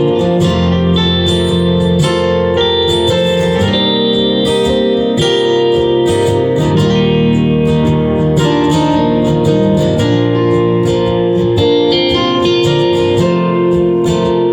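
Live band playing an instrumental passage of a song, led by guitars, with sustained notes over a steady low end.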